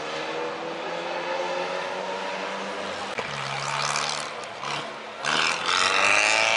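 Pre-war racing car engine pulling uphill, its note rising steadily. About three seconds in a second car's engine takes over and gets much louder about five seconds in as the car passes close.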